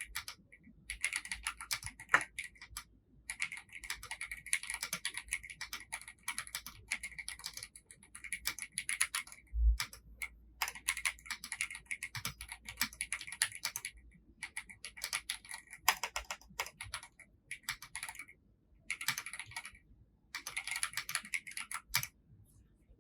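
Typing on a VGN N75 Pro mechanical keyboard: fast runs of keystrokes in bursts, broken by short pauses. A single dull low thump about ten seconds in is the loudest moment.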